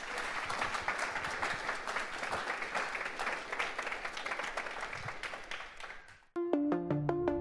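Audience applauding, fading out about six seconds in. Electronic background music starts just after, with a melody of short repeated notes.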